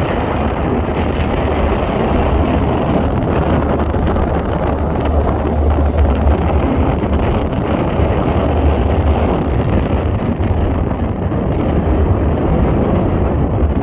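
Wind buffeting the microphone over a boat's steady engine rumble and rushing water, an unbroken low roar on a sea crossing.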